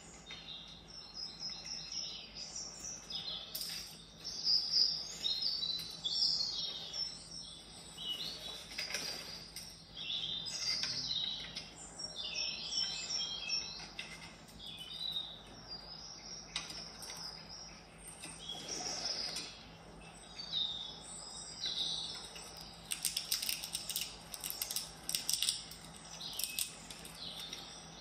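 Small songbirds chirping and twittering, many quick overlapping calls, played from a cat-entertainment video through a smart display's speaker.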